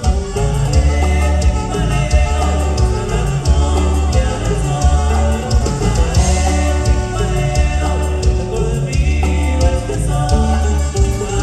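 Norteño band playing a cumbia, with singing over a heavy bass line and a steady repeating beat.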